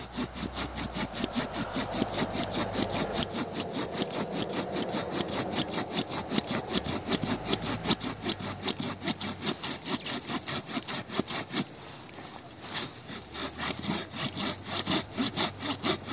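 Silky folding hand saw cutting through a log that is a little big for its blade, in quick, regular back-and-forth strokes, easing briefly about twelve seconds in.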